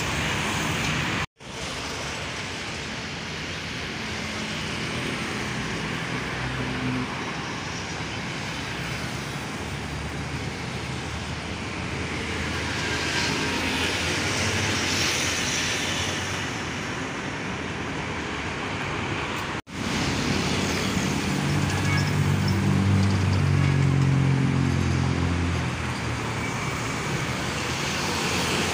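Busy road traffic passing: cars and motorcycles going by, with a heavy truck's engine running low and loud during the last third. The sound cuts out for an instant twice.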